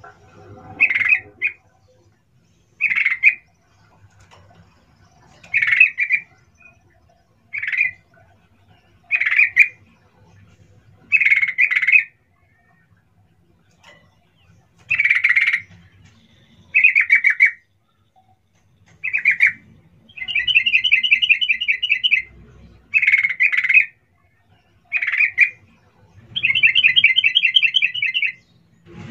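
Yellow-vented bulbul calling: a run of short calls about every two seconds, with two longer, rapidly pulsed chattering phrases in the second half.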